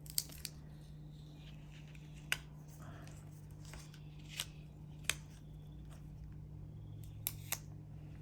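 A handful of short, sharp light clicks and taps, about seven spread over eight seconds, from handling stickers and craft tools on a planner page, over a steady low hum.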